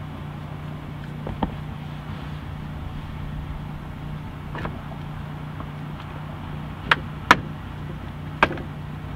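Sharp clicks of a small metal pry tool working loose plastic door-trim pieces: a few scattered clicks, then two loud ones close together about seven seconds in and another a second later. A steady low hum sits underneath.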